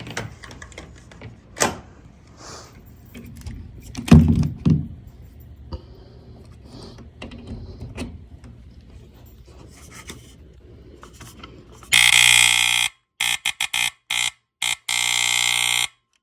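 Handling knocks, with one loud thump about four seconds in, then an FXC-1 smoke alarm sounding its loud, steady test tone for about four seconds. The tone is broken by several short gaps and cuts off abruptly.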